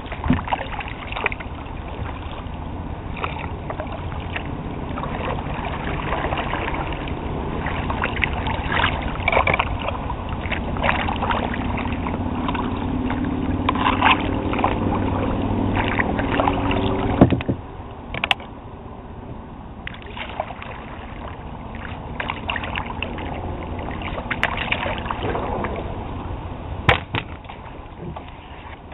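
Kayak being paddled on a slow, shallow river: water washing and splashing from the paddle strokes, with scattered knocks against the hull. The water noise drops off suddenly about seventeen seconds in, and a few sharp clicks follow.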